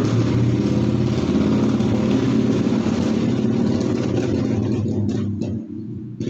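A motor vehicle engine running loudly close by, falling away about five and a half seconds in.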